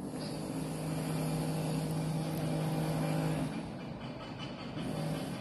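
A steady low motor hum that holds for about three and a half seconds, fades, and comes back faintly near the end.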